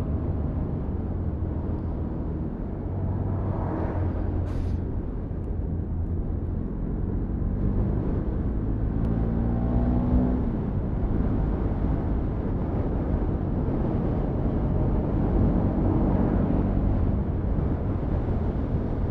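Bajaj Pulsar NS200 FI motorcycle's single-cylinder engine running steadily while climbing a mountain road, its pitch rising and falling a little with the throttle, under a constant rush of road and wind noise. A brief hiss comes about four and a half seconds in.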